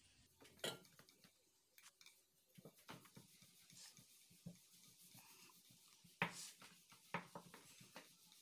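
Faint rubbing and knocking of a rolling pin rolling out wheat-flour dough on a stone slab, with a few sharper taps, the loudest about six seconds in.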